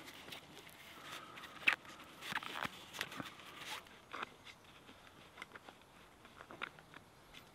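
Dry lime bast fibres rustling and crackling as they are twisted by hand into cord, with irregular sharp crackles that are loudest in the first half and fainter, sparser ticks later.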